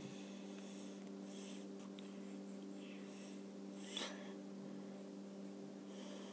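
Faint scratching of a silver marker's tip on a small piece of popsicle stick, in a few short strokes, over a steady low hum.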